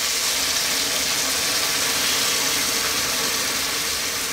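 Coconut milk poured into a hot frying pan of sautéed clams, a steady hissing sizzle as the liquid hits the hot oil and pan.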